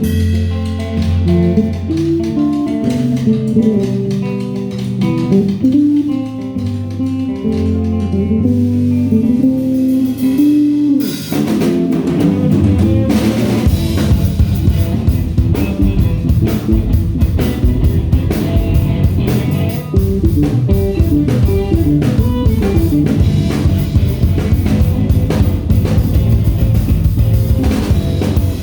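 Band music: guitar and bass play a melody at first, then a drum kit comes in about eleven seconds in and the full band plays on with a steady beat.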